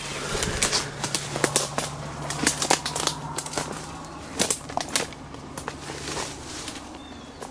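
Footsteps crunching through dry leaf litter and twigs, with irregular sharp cracks and snaps and the rustle of brushed-aside branches.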